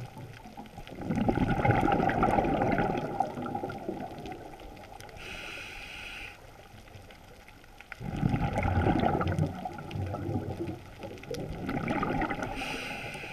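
Scuba diver breathing through a regulator underwater. Exhaled bubbles gurgle out in long rushes, starting about a second in and again around eight seconds in. Each is followed by a short, whistling hiss of an inhale through the regulator.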